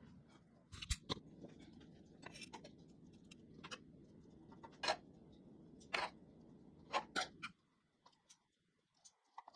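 Scattered sharp taps and clicks of a utensil against a dish while bell peppers are stuffed with a turkey and rice filling, over a faint low hum that cuts off about three-quarters of the way through.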